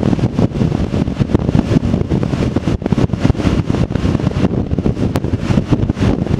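Wind buffeting a motorcycle-mounted camera's microphone at about 60 mph: a loud, gusty rush with heavy low flutter.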